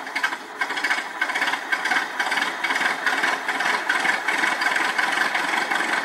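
A recorded mechanical sound effect played back from an Adafruit Sound FX board: a steady engine-like running with a fast, even rattle.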